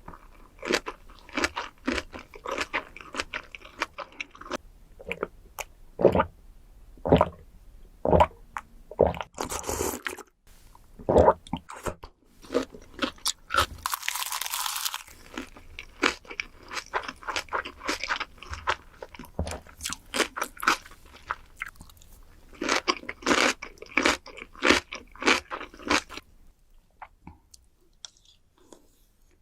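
Close-miked eating of soy-sauce-marinated raw shrimp: irregular crunching bites and wet chewing with mouth clicks. A longer hissing, slurping stretch comes about halfway through, and the eating goes quiet for a moment near the end.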